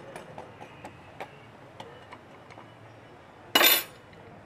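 Scattered light clicks and taps, then a short loud hiss lasting under half a second: steam escaping from a stovetop pressure cooker's valve as it is let off under a cloth to release the last pressure before opening.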